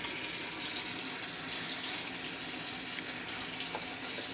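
Kitchen tap running steadily into the sink, water splashing as something is rinsed under it.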